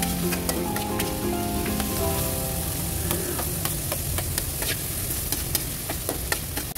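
Chopped garlic, ginger and onion sautéing in a steel wok: a steady sizzle, with a metal turner clicking and scraping against the wok as it stirs. Chopped onion is tipped into the pan about four seconds in.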